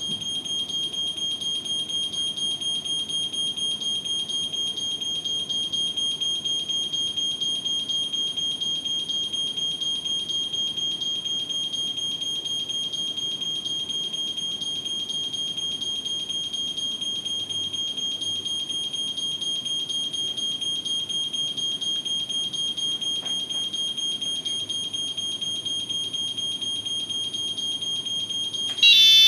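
Notifier fire alarm control panel's buzzer sounding a steady high-pitched tone while a single detector is in fire and its smoke keeps rising. Near the end, louder alarm sounders come in as the system goes into full evacuation.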